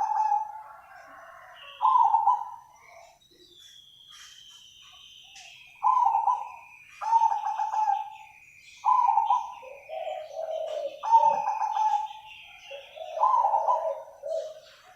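Zebra dove (perkutut) giving its staccato cooing song in repeated bursts, with a pause of a few seconds early on before the phrases come more often. A faint high whistle, slowly falling in pitch, runs behind the coos through the middle.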